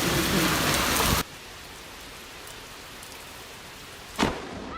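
Heavy rain pouring down as a loud, even hiss that cuts off abruptly about a second in, giving way to quieter steady rain. A single sharp knock sounds near the end.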